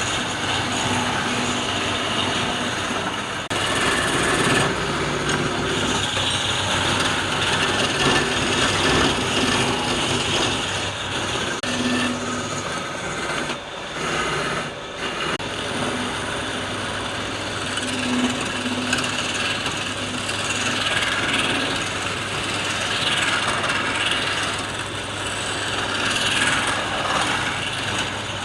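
Wood lathe running steadily while a turning tool cuts the spinning wood, a continuous hum under a hissing cutting noise that swells and eases as the tool works.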